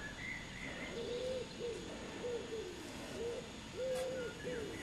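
A pigeon cooing: a run of short, low coos repeating about every half second, with a few faint high chirps from a small bird at the start and near the end.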